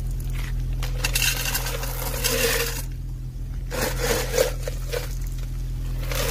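Crushed-stone coarse aggregate (20 mm) poured from a metal scoop into a metal density bucket, the stones clattering and clinking against the metal and each other in two spells, with a steady low hum underneath.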